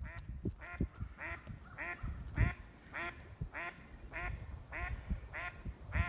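A duck quacking in a steady series, about two short quacks a second.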